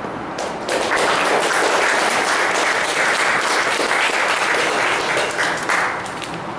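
Audience applauding, starting under a second in and dying away about a second before the end.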